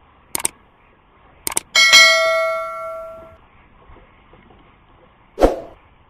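Mouse-click sounds and a notification-bell chime from a subscribe-button animation: a quick double click, another click, then a bright bell ding that rings and fades over about a second and a half. Near the end, a single dull thump.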